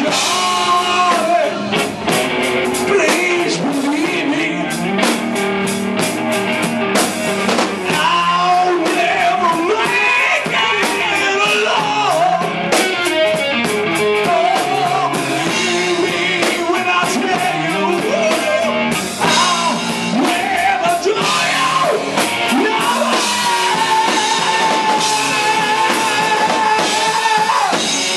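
Live rock band playing loudly: a male singer over electric guitar, bass guitar and a drum kit, with a long held note near the end.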